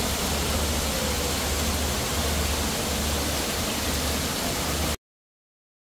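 Water from small bubbler fountain jets splashing into a shallow pool: a steady rushing hiss with a low rumble underneath, cutting off suddenly about five seconds in.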